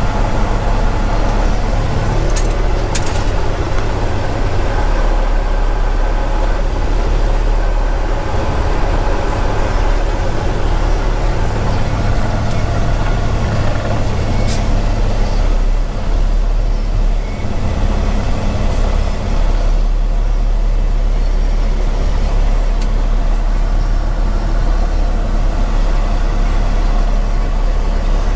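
Heavy diesel engine of a rotator tow truck running steadily, heard from inside its cab, with a few short clicks.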